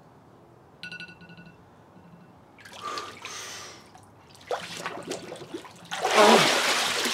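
Water sloshing and splashing in an ice bath tub as a person moves in the cold water, coming in swells and loudest near the end. A short, faint tone sounds about a second in.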